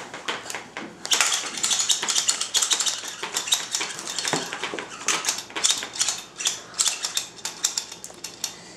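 Plastic toys and packaging clattering and crinkling in a basket as a toddler rummages through it: a dense run of small clicks and rustles, starting about a second in.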